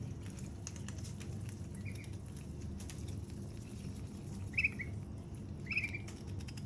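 White ducklings peeping in short high calls, three times, the second and third the loudest, over a running patter of small clicks from duck bills nibbling and dabbling at watermelon flesh held in a hand.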